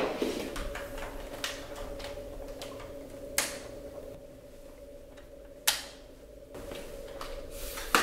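A power cord being wrapped around the plastic cord hooks on the back of a Dyson Small Ball upright vacuum: the cord rustles and knocks against the body, with two sharp plastic clicks, one a little before halfway and one about two-thirds through, over a faint steady hum.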